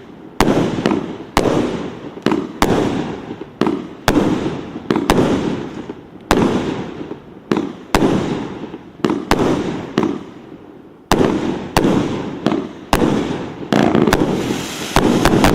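Fireworks display: aerial shells bursting in quick succession, a sharp bang roughly every half second, each trailing off in a rolling rumble. Near the end, a dense crackle builds under the bangs.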